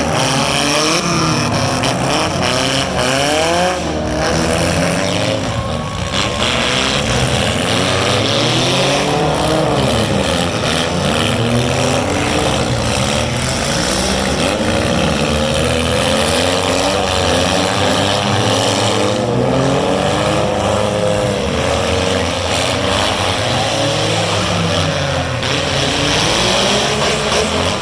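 Engines of several four-cylinder demolition derby cars revving together, their pitches rising and falling over one another.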